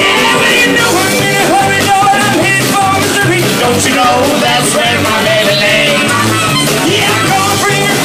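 Live rock band playing loud and steady: electric guitars, bass guitar and drums, with a singer's vocals and a harmonica over the top.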